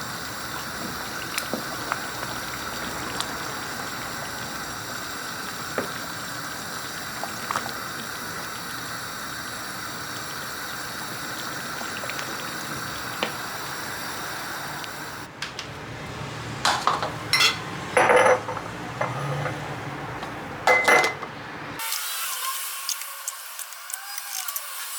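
Kitchen sounds: a steady rush of running water with a few light clicks, then dishes and cutlery clinking and clattering, several sharp loud knocks in a row.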